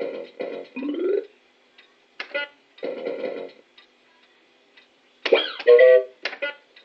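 Dennis the Menace fruit machine playing its electronic sound effects: short bursts of beeps, clicks and little jingles as the reels spin and stop, with the loudest burst a little past five seconds in.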